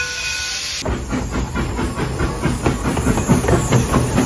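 Steam locomotive hissing with a ringing bell tone. Just under a second in, this gives way abruptly to the moving train: a low rumble with rapid, uneven clattering of wheels and running gear.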